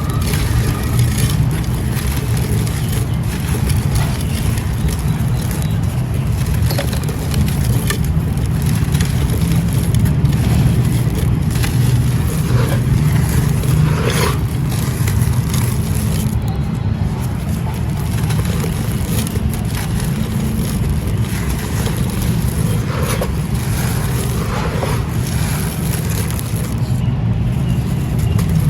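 Dry clay pot and gritty sand crumbling, with scattered crackles and scrapes over a steady low rumble.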